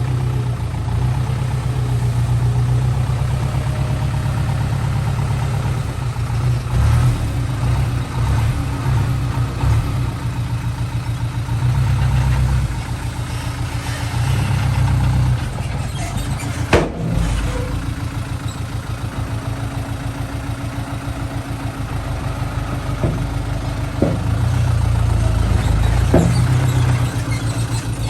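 Diesel engine of heavy earthmoving equipment running close by, its load and speed rising and falling several times, with a few sharp knocks about two-thirds of the way through and near the end.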